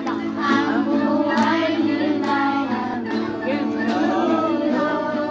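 A man and a woman singing a song together to the accompaniment of a small acoustic guitar, strummed in a steady rhythm.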